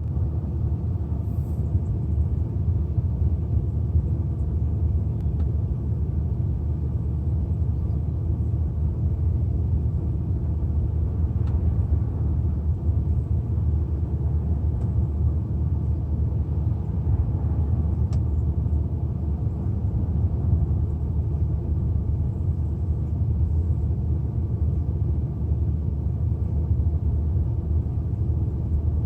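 BMW 130i's N52 3.0-litre straight-six idling with a misfire at idle that sets no fault codes.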